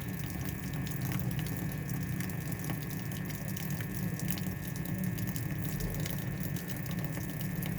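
Water running steadily in a washing machine, with a low steady hum underneath.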